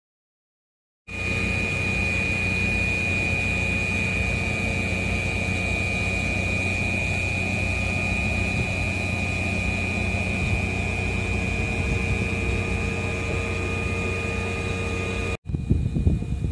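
Stationary Gakunan Railway 8000 series electric train (ex-Keio 3000 series) idling while waiting to depart, its onboard equipment giving a steady hum with a constant high whine. The hum starts about a second in and cuts off abruptly near the end, giving way to a rougher, uneven noise.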